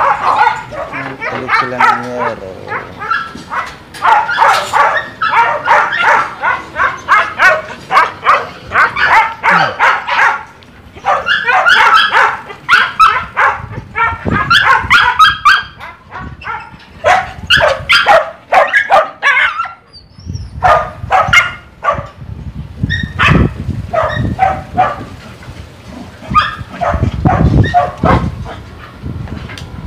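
A dog barking over and over, in quick runs of barks that thin out to more spaced barks in the second half.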